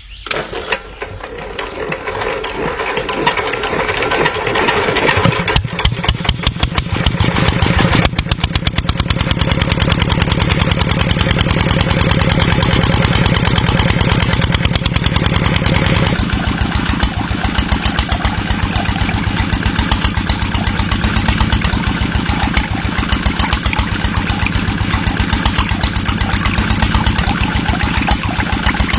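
Engine of a stationary water-pump set starting and running with a rapid, even chugging. It builds up over the first few seconds, runs steadily, and shifts in tone about sixteen seconds in.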